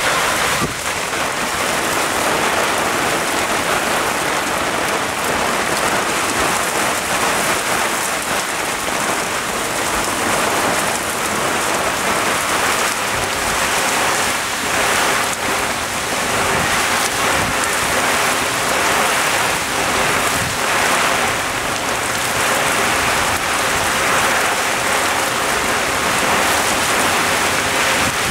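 Torrential cloudburst rain falling on a moored sailboat and the harbour water around it, heard from under the boat's canvas cover: a loud, steady hiss of countless drops.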